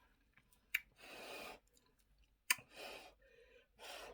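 A person eating eba with okra soup: two sharp wet mouth clicks from chewing, with three short breaths between them.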